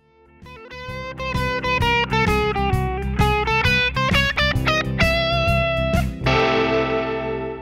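Electric guitar playing a quick riff of single picked notes that step up and down in pitch, ending about six seconds in on a strummed chord that rings out and fades.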